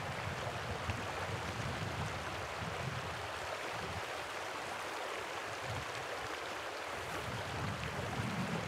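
Small, shallow mountain river, about three metres wide and thirty centimetres deep, flowing over its stony bed just below the lake outlet: a steady, even rush of water.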